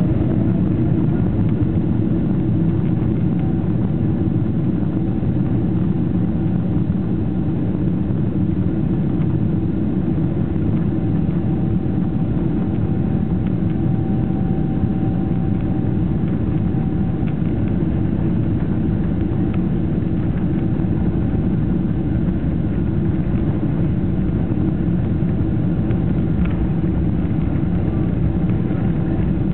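Steady cabin rumble of a Boeing 777-300ER, its GE90 engines running as the airliner rolls slowly on the runway, heard from inside the passenger cabin. A faint steady whine sits over the low rumble.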